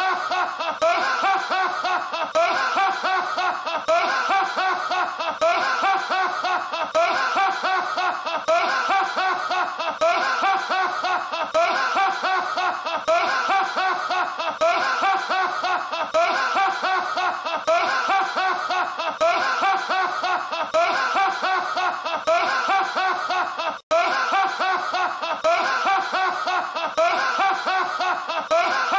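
A man's big, open-mouthed laugh, repeated over and over in a loop about every two seconds, with a split-second break about five seconds before the end.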